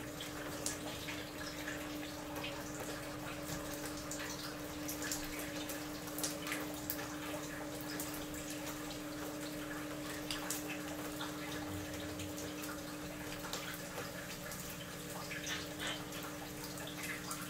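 Steam hissing steadily from a Teflon steam hose pushed into a frozen hot-water pipe to thaw it, with scattered drips and spatters of water and a steady low hum.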